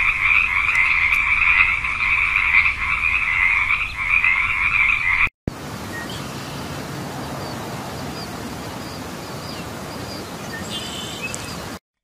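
A loud, dense frog chorus: many frogs calling at once in an unbroken mass. It cuts off about five seconds in. After that comes a quieter, even outdoor hiss with a few faint high chirps.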